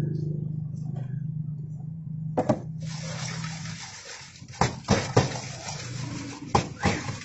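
French fries being tossed in a stainless-steel bowl: a rough sliding rustle with sharp clattering knocks of the fries and bowl, starting about two and a half seconds in. A steady low hum underlies the first few seconds.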